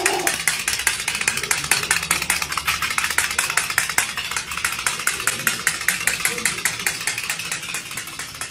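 A small mechanical toy running on a tile floor, its mechanism clicking rapidly and evenly at about eight clicks a second.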